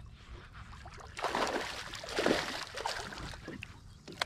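A hooked largemouth bass splashing and thrashing at the water's surface, in several bursts of splashing starting about a second in.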